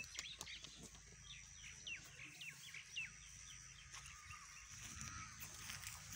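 A bird calling in a quick series of short, falling chirps, about eight of them, from about a second in to about three seconds in, against quiet outdoor background.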